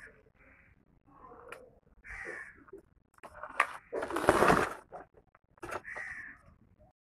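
Crows cawing several times, with a loud rustling burst of nearly a second about four seconds in.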